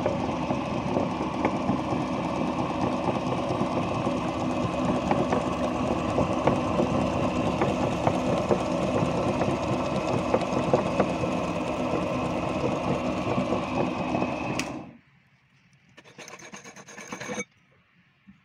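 Metal meat grinder grinding bar soap: a steady, loud rasping and grinding as the auger forces the soap through the cutting plate. It stops abruptly about 15 seconds in, and a brief, quieter noise follows.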